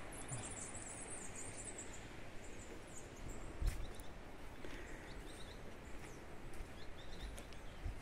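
Songbirds chirping in short high calls over the steady rush of a river flowing in the forest below, with a few low footstep thumps.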